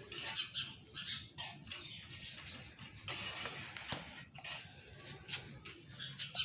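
Birds making irregular short scratchy, hissy noises, with a sharp click about four seconds in.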